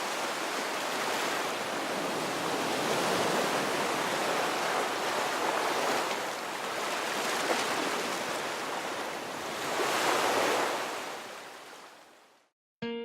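Sea waves washing in, a steady rushing that swells and eases a few times, fading out near the end.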